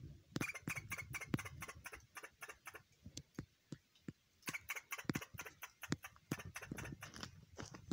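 A squirrel chattering: quick runs of short clicking calls, about five a second, in two bouts with a pause a little past the middle. This is an alarm chatter, which the filmer guesses is fear of a Eurasian jay in the same tree.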